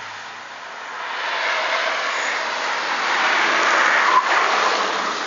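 Saab 9-3 estate with a twin-turbo diesel engine driving past at speed: engine and tyre noise build from about a second in and peak as it passes close about four seconds in, with one short knock at the loudest point.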